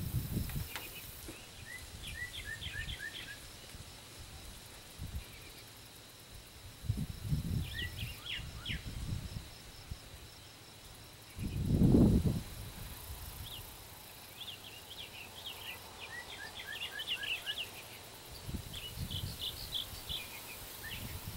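Outdoor ambience: birds chirping in quick runs of short notes, with gusts of wind rumbling on the microphone, the strongest gust about twelve seconds in.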